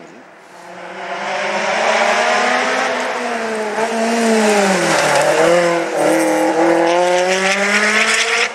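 Rally car, a Lotus Elise, passing at speed: its engine note builds as it approaches, the pitch dips about five seconds in, then climbs again as it accelerates away.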